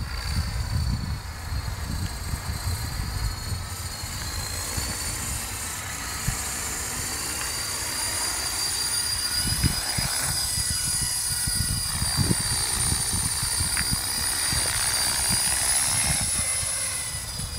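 Align 450-size electric RC helicopter in flight: a steady high whine from the motor and spinning rotors that wavers slightly in pitch as it manoeuvres, over wind rumbling on the microphone.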